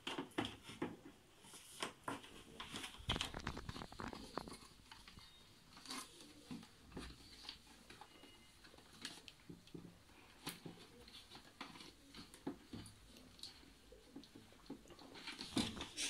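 Faint, irregular plastic clicks, knocks and rustling from hands handling the filter cartridges and push-fit tubing inside an opened water purifier's plastic housing.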